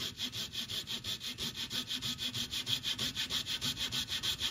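Jeweler's saw cutting through a small block of wood in fast, even strokes, about nine a second.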